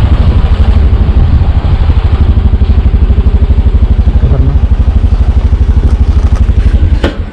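Motor scooter engine running under way, a loud, rapid, even low throb that cuts off near the end.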